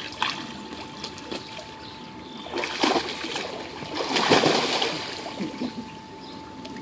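Water splashing as a large dog plunges off a swimming pool's shallow ledge into the water, with a first burst about two and a half seconds in and the biggest splash about four seconds in.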